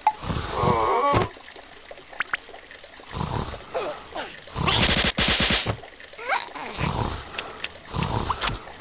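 Cartoon larva characters making wordless, squeaky vocal noises, with short comic sound effects in between and a loud noisy burst about five seconds in.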